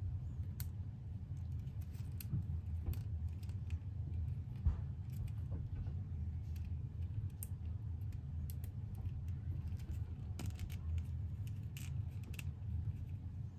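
Small scattered clicks and taps of a plastic action figure being handled, its jointed legs and armour pieces moved in the hands, over a steady low hum.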